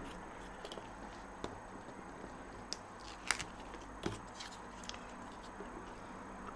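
Faint, scattered light clicks and taps of card stock being handled and positioned on a work surface, the sharpest a little past three seconds in.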